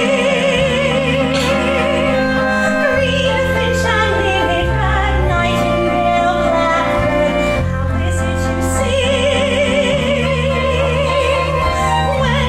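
A woman singing in a classical, operatic style with a wide vibrato, holding long wavering notes at the start and again near the end, over a sustained instrumental accompaniment.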